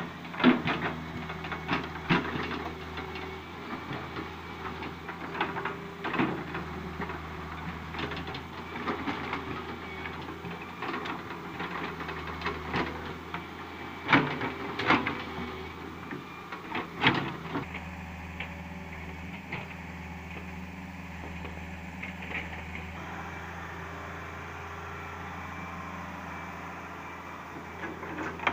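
Hitachi hydraulic excavator's diesel engine running steadily while the machine digs into an earth bank. Frequent sharp clanks and knocks from the bucket and arm come through the first half; they die away after about 17 seconds, leaving the engine's steady run.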